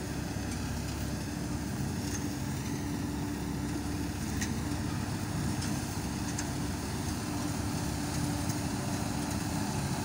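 Wheat threshing machine running steadily: a constant low rumble with an even hum as it takes in wheat sheaves.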